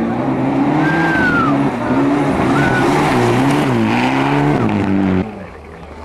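Mitsubishi Lancer Evolution rally car's turbocharged four-cylinder engine revving hard through a gravel corner, its pitch rising and falling with the throttle and gear changes. About five seconds in the sound cuts abruptly to a quieter, more distant engine.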